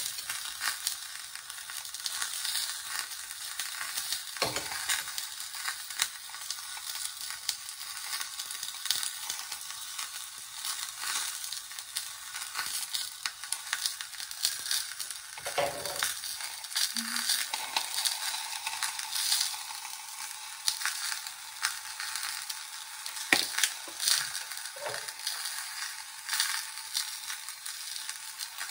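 Skin-on salmon fillets frying skin-down in olive oil in a hot cast iron skillet: a steady crackling sizzle, with a few soft knocks along the way.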